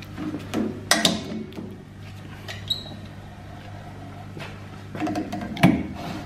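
Steady hum of a carbide saw-blade sharpening machine's electric motor, with a few metallic clanks and knocks as the machine and blade are handled and adjusted. One knock comes about a second in, a brief metallic ring follows, and a cluster of clanks comes near the end.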